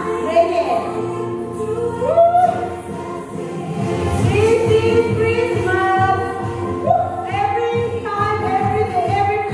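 Workout music: a sung melody, with a steady beat coming in about four seconds in.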